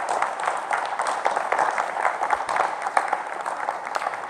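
Audience applauding, a dense, steady crowd of clapping hands.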